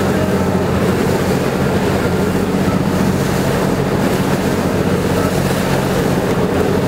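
A boat's engine running steadily, with wind buffeting the microphone and the wash of choppy water.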